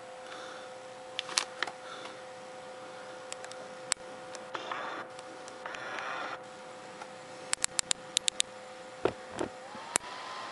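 Small plastic toy projector being handled, its push button clicking: single sharp clicks now and then, a quick run of about six clicks around eight seconds in, and a couple of short rustles of handling, over a faint steady hum. The button works only intermittently, so it is being pressed over and over to get the light to project.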